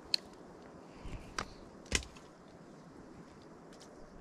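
Eating sounds: a sharp click just after the start, then a few short knocks between about one and two seconds in, over a steady low hiss.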